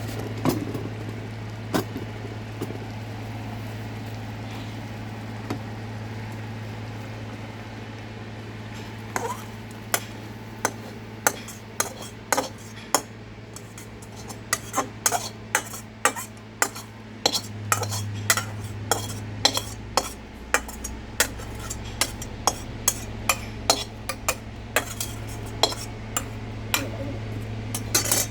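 A metal spoon scraping and knocking against a karahi as boiled tomatoes are scooped out into a bowl. The clinks are sparse at first, then come one or two a second from about nine seconds in, over a steady low hum.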